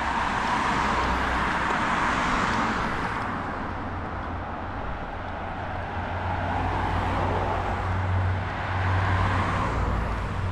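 Road traffic on a street: a car's tyre and engine noise swells and fades over the first few seconds, and another builds up near the end, over a steady low rumble.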